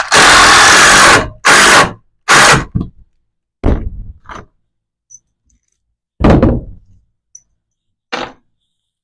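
Power drill driving deck screws into 2x4 truss lumber in three loud bursts, the first about a second long, followed by a few separate wooden knocks.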